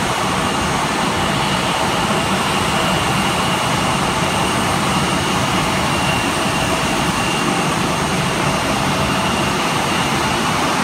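Embraer E170's twin GE CF34-8E turbofan engines running at taxi power: a steady jet rush with a thin, high whine held on one pitch.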